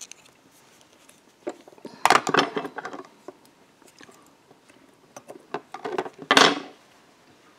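Light clicks and clinks of small metal fly-tying tools being handled at the vise, in short bursts about two seconds in and again near six seconds, the last ending in a brief rustling swish.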